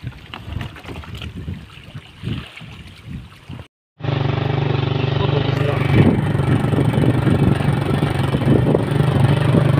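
Scattered knocks and handling noises, then after an abrupt cut about four seconds in, a small engine running steadily and loudly.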